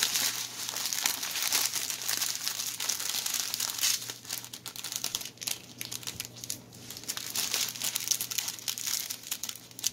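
Thin plastic bags of diamond painting drills crinkling and rustling as they are handled and sorted, easing off for a couple of seconds in the middle.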